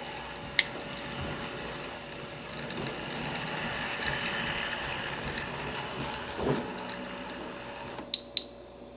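Model locomotives' electric motors and gear drives whirring along the track, swelling as one passes close about four seconds in and fading, with sharp clicks of wheels over the rails and a low thump about six and a half seconds in. Just after eight seconds two clicks come and the running stops: the small switcher without a stay-alive capacitor stalls on a dead spot in the track.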